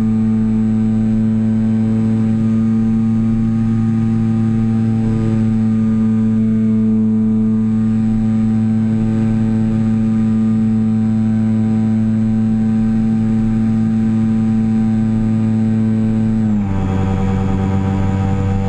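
Electric motor and propeller of a HobbyZone Super Cub RC plane in flight, heard from a camera mounted on the plane: a steady, loud whine holding one pitch. About sixteen and a half seconds in the pitch drops a little and stays lower.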